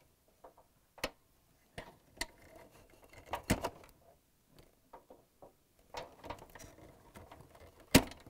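Plastic four-wire harness plugs being pulled off a dishwasher's electronic control board: scattered small clicks with faint rustling of the wires, and a sharper click near the end.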